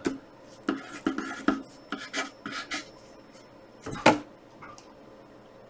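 Wooden pencil scratching on graph paper in quick short strokes as numbers and lines are written and drawn, with a louder knock about four seconds in.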